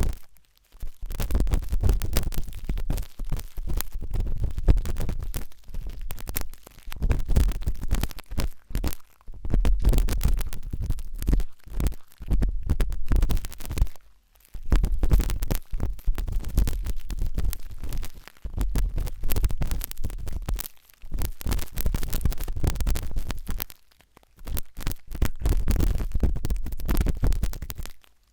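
A sharp toothpick scraping and scratching inside an ear, very close to the microphone: dense crackling over a low rumble, in stretches of a few seconds broken by short pauses.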